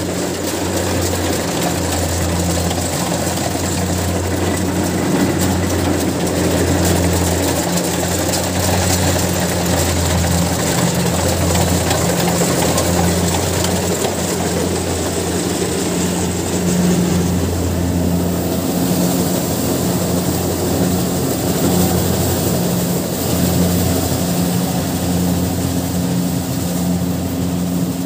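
Kubota DC70 Plus rice combine harvester running: its diesel engine and machinery give a steady, loud low hum with a rattling hiss over it.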